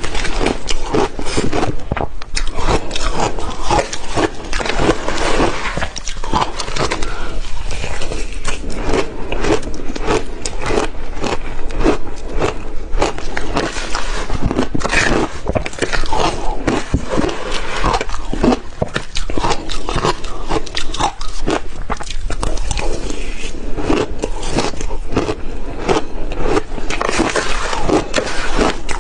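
Crushed ice crunched between the teeth close to the microphone: a dense, steady run of crisp crunches. A metal spoon scrapes and clinks through the ice in a glass bowl as more is scooped up.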